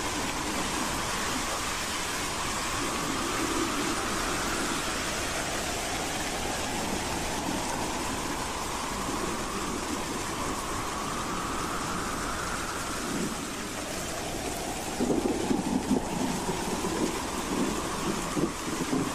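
Howling wind: a steady rushing hiss with a whistling tone that rises slowly over several seconds, three times, and a louder gusty rumble in the last few seconds.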